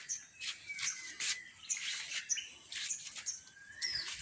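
Birds chirping: many short, high calls in quick succession, some sweeping quickly down in pitch.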